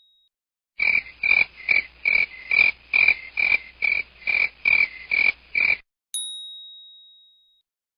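A sound effect of rapid, evenly repeated croaking calls, about a dozen at roughly two and a half a second. It stops suddenly and is followed by a single bright ding that rings out.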